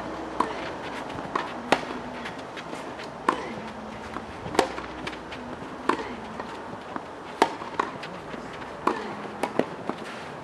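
Tennis ball struck by rackets in a rally, a sharp pop about every one and a half seconds, with softer taps between.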